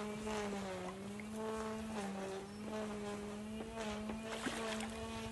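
A motor running steadily, its hum wavering slightly up and down in pitch.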